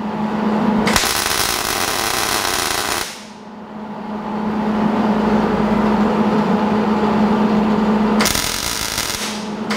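MIG welder laying tack welds of a steel bracket onto a steel car frame rail: arc crackle and sizzle, sharpest from about one to three seconds in and again near the end, over a steady low hum.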